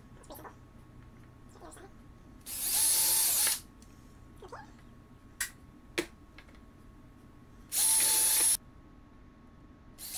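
Craftsman 18-volt cordless drill boring pilot holes through an acrylic panel into wood, in two runs of about a second each with a steady whine. Two short sharp clicks come between the runs.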